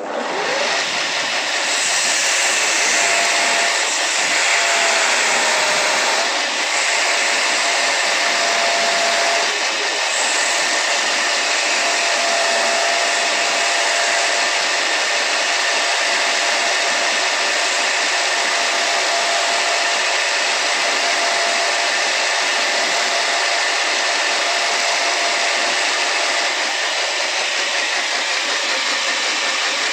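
Power tool running steadily under load while abrasive sandpaper smooths the rebuilt steel ball of a car ball joint: a continuous hiss of grit on metal over a motor hum, with the pitch wavering briefly a few seconds in.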